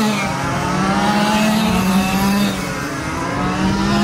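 Several quarter-scale RC stock cars racing around a paved oval, their motors overlapping and rising and falling in pitch as they go through the turn, over a steady low hum.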